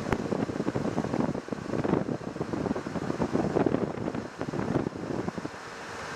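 Wind buffeting the microphone in uneven gusts while moving down a paved road.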